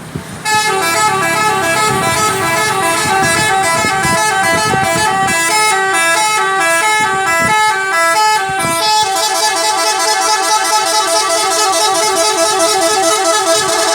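Bus 'telolet' horn, a set of musical air horns playing a long stepping tune, starting about half a second in. Around nine seconds in, the tune changes to a faster back-and-forth pattern between a few notes.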